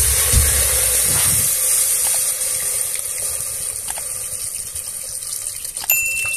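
Water pouring from a jug into an aluminium pressure cooker over potatoes: a steady splashing gush that grows slightly quieter as the pot fills.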